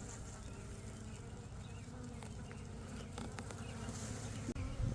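Honeybees buzzing as they stream out of a freshly opened nuc box, many wingbeats blending into a wavering hum. The bees are agitated after being shut in the box during a bumpy ride.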